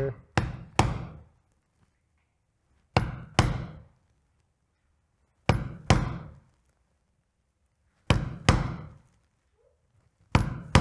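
Mallet striking a number 5 oval leather hole punch through a belt strap: two sharp blows about half a second apart, repeated five times at steady intervals as a row of belt holes is punched.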